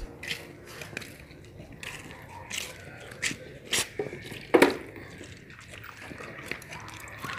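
Dogs eating raw chicken, and food tipped from a plastic tub into a plastic bowl, giving a series of sharp cracks and knocks, the loudest about four and a half seconds in.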